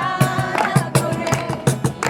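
Music with a quick, steady beat, about four strikes a second, over strummed guitar.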